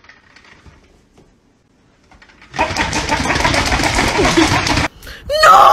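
A small toy motor rattling loudly for about two seconds, starting about two and a half seconds in and cutting off abruptly. A person's voice cries out near the end.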